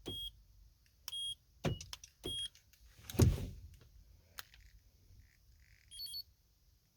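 Short high electronic confirmation beeps, four of them in the first two and a half seconds, from a car's remote and security system, among small clicks and key jangles. A heavier thump comes about three seconds in, and a quick higher-pitched beep or two sounds near six seconds.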